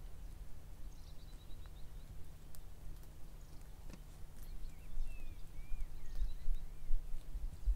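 Outdoor bush ambience of small birds calling over a low rumble. A quick run of short high notes comes about a second in, then several curling chirps from about five to six and a half seconds in.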